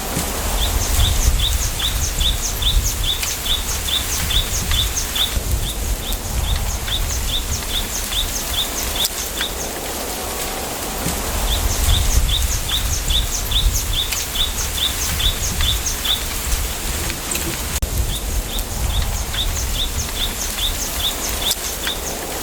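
Wind through a bamboo forest, with a gusty low rumble of wind on the microphone. A bird repeats a short high note about five times a second in runs of a few seconds, three times.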